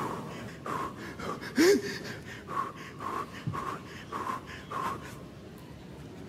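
A man's short breathy huffs and gasps, about eight in a row over the first five seconds, then a quieter stretch.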